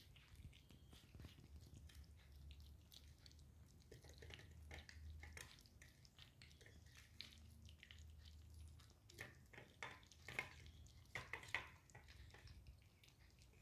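Two kittens eating cooked rice from a steel plate: faint, wet chewing and licking made of many small clicks, with a few sharper clicks near the end.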